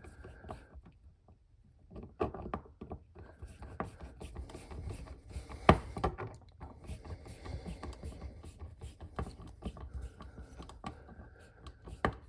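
Screwdriver driving the mounting screws of a new electrical outlet into its wall box: irregular small clicks and scrapes of metal, with a sharper click about six seconds in and another near the end.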